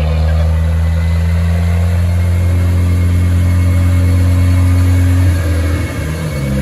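Volvo 240 Turbo's B21FT turbocharged four-cylinder running steadily at idle on the dyno between pulls, through a 2.5-inch stainless exhaust with a Cherry Bomb muffler. The note wavers briefly near the end, then settles.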